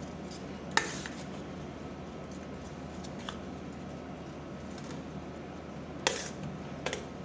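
Metal spoon stirring and scraping a dry mutton-mince samosa filling in a metal bowl, with a few sharp clinks of the spoon against the bowl, about a second in and near the end, over a steady background hiss.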